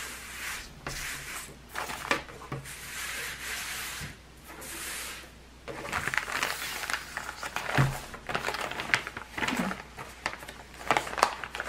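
Rustling and crinkling of a clear plastic cross-stitch kit bag and paper pattern sheets being handled and slid across a tabletop, with small scrapes and taps.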